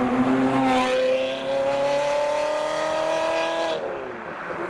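Ferrari 360 Spider's flat-plane V8 accelerating away, its note climbing steadily in pitch, then dropping about four seconds in.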